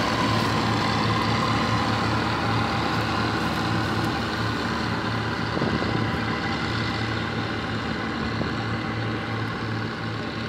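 Bizon Z056 combine harvester running while harvesting grain: its diesel engine and threshing machinery make a steady, dense mechanical noise with a pulsing low hum. The noise slowly fades as the machine moves away.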